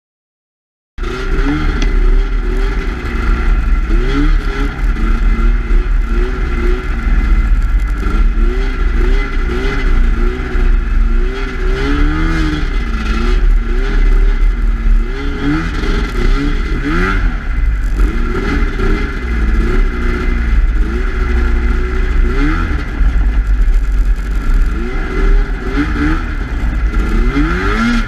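Snowmobile engine revving up and down under load while riding through deep snow. It starts about a second in, with its pitch rising and falling constantly over a steady high whine.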